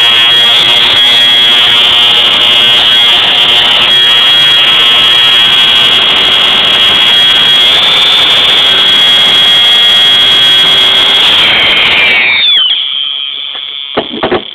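Fire alarm horn sounding one continuous, loud, high-pitched tone. About twelve seconds in it stops with a brief drop in pitch, and a short knock follows near the end.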